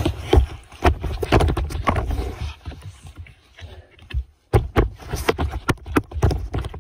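Phone handling noise: fingers rubbing and knocking on the phone close to its microphone, giving a run of irregular thumps and clicks that stops briefly a little after four seconds in.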